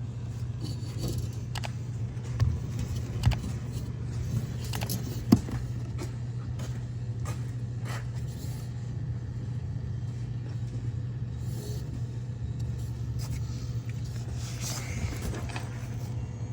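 Frigidaire dishwasher wash motor powered but failing to spin up: a steady low hum with a few knocks, the thumping of a bad motor that has 120 volts at it and is heating up.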